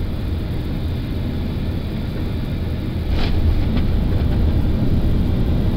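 Flight-deck noise of an Airbus A330-200 landing with its engines at idle: a steady low rumble of airflow and engines that grows louder about three seconds in as the aircraft comes onto the runway.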